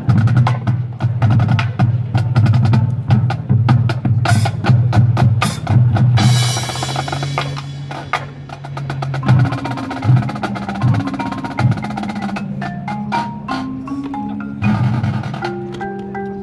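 Marching band percussion section, drumline and front ensemble, playing a loud, fast feature. Dense rapid drum strikes fill the first half. After about eight seconds they give way to separate low pitched notes and stepping mallet-keyboard notes.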